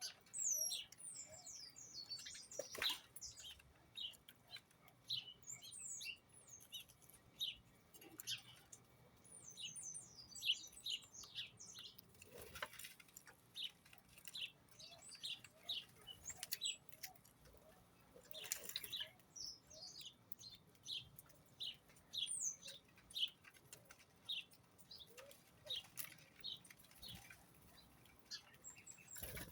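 Small birds chirping over and over in short, high, quick notes, some falling in pitch, with a few brief flutters of wings.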